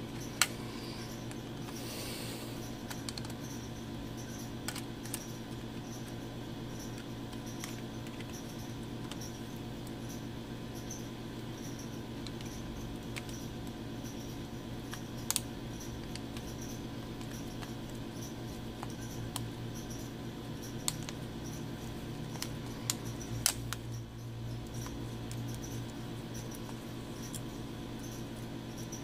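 Small plastic and metal smartphone parts clicking and tapping as a logic board and plastic pieces are handled and pressed into the phone's frame, over a steady low hum. The clicks are scattered and sharp, the loudest about half a second in, around fifteen seconds in and around twenty-three seconds in.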